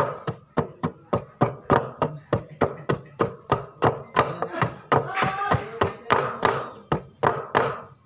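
A heavy chopping blade striking a small block of wood held against a wooden board, about three sharp chops a second, splitting off chips as the block is shaped.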